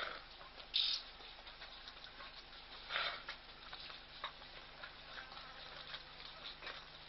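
Faint open-air ambience picked up by a wildlife camera's microphone: a low steady hum under a faint hiss, with a few short scratchy sounds, the clearest about a second in and about three seconds in.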